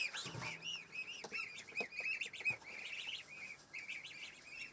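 Young goslings peeping: a steady stream of short, high, arched peeps from several chicks at once, overlapping in quick succession.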